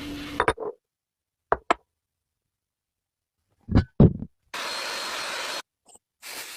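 A running motor cuts off about half a second in. It is followed by a few sharp knocks of hand work, the loudest pair about four seconds in, and then two bursts of steady hissing noise about a second long each.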